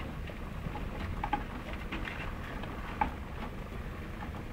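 Scattered light clicks and rattles of PC parts being handled while a cable connector is plugged in, with sharper clicks a little over a second in and about three seconds in.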